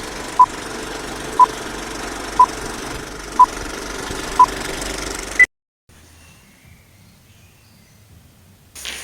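Electronic countdown pips: five short beeps one second apart, then a single higher beep, over a steady noisy hum that cuts off with the last beep. Faint low noise follows, with a few soft knocks near the end.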